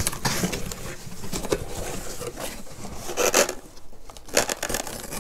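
Cardboard parcel being opened by hand: irregular scraping and rubbing of cardboard and packing tape, with a few sharp clicks and a denser scrape about three seconds in.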